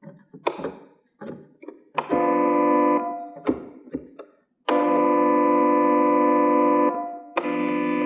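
Galanti (GEM) Caravan portable electronic organ sounding three held chords, the middle one about two seconds long and the loudest. Each chord starts with a sharp click. Between them are clicks and taps of keys and switches.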